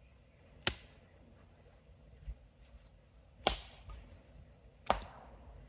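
Axe chopping into a log to split firewood: three sharp strikes a second or more apart, the first about a second in, with a softer thud between the first two.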